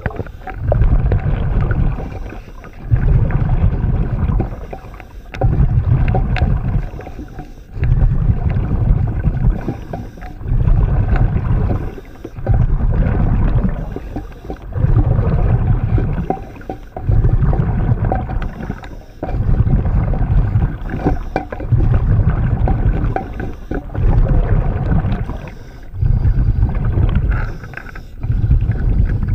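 Scuba diver breathing through a regulator, heard underwater. Loud bubbling exhalations come about every two seconds, with short quieter gaps between.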